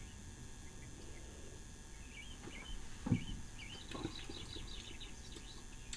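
Faint birds chirping in the background: a few short chirps from about two seconds in, then a quicker run of notes. A soft low thump comes about three seconds in.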